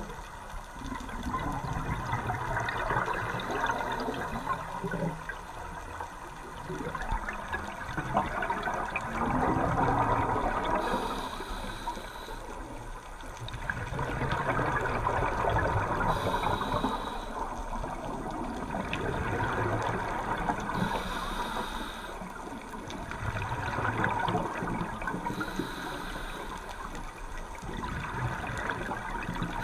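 Scuba diver breathing through a regulator, heard underwater through the camera: a short hiss of inhalation about every four and a half seconds, each followed by a longer rush of exhaled bubbles.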